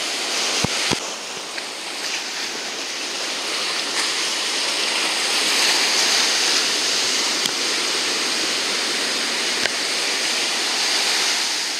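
Ocean surf washing up the beach, a steady rush that swells in the middle. Two short knocks about a second in.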